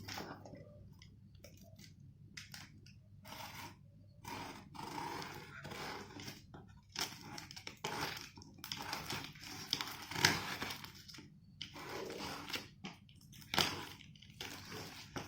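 Parcel packaging being handled and torn open: irregular crinkling, rustling and tearing, with a couple of sharper crunches, around 10 seconds in and again near the end.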